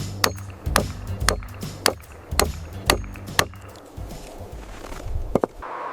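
A hammer knocking on wood in repeated sharp blows, about two a second, that thin out and stop after about three and a half seconds, with a couple more near the end. A steady hiss rises just before the end.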